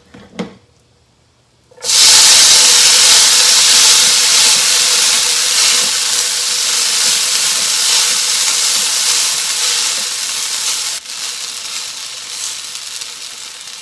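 Boiled cha-soba noodles sizzling as they hit hot sesame oil in an electric griddle pot. A loud hiss starts suddenly about two seconds in, slowly dies down, and drops to a quieter sizzle near the end.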